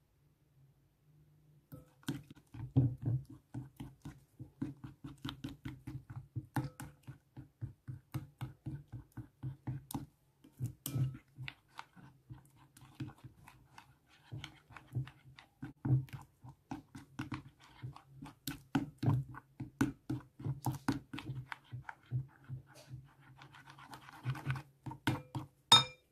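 Plastic spatula stirring grainy green gel slime in a glass bowl: wet, rhythmic stirring strokes about three a second, starting about two seconds in. Near the end comes a sharp knock of the spoon against the bowl.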